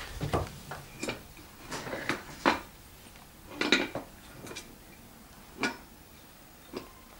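Scattered short clicks and knocks, like small hard objects being handled and set down, with the loudest pair about two and a half and four seconds in.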